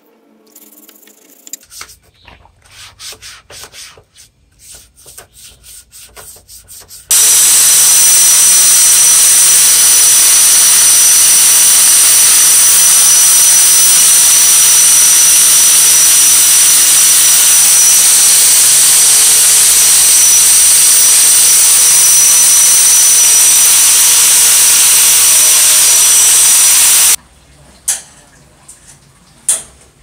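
Handheld electric angle grinder running steadily for about twenty seconds against the metal carriage rail of an old typewriter, a constant high whine over a harsh hiss, starting and stopping abruptly. Before it, quieter scrubbing of a part in a basin of water; after it, a few sharp knocks.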